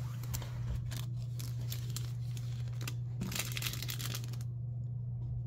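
Crinkling and rustling of a small mending-kit packet being picked up and handled, busiest about three to four and a half seconds in, over a steady low hum.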